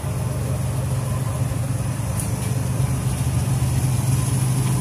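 A vehicle engine idling with a steady low drone.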